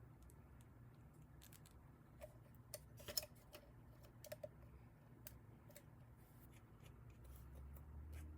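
Faint, scattered small clicks and taps, most of them bunched about three seconds in, over a low steady hum.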